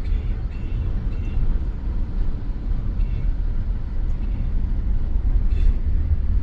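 Steady low rumble inside a Tesla Model Y's cabin as it drives through deep floodwater, the water churning against the tyres and underbody.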